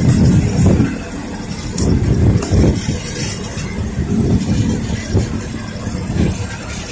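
A train's engine running, a steady low hum with uneven rumbling over it.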